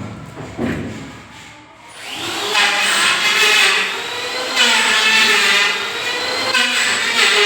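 Two knocks, then about two seconds in a handheld power tool starts and runs hard, its whine slowly climbing in pitch and its noise swelling and easing several times.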